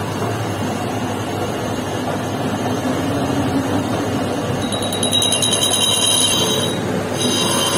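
Metal lathe running with a motorcycle clutch pressure plate spinning in its chuck, a steady mechanical hum. About five seconds in, a high, pulsing metallic ringing joins as the cutting tool meets the spinning steel rim, breaking off briefly and then returning near the end.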